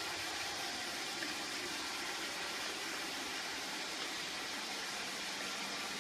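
Steady, even rushing noise with no clear tone or rhythm.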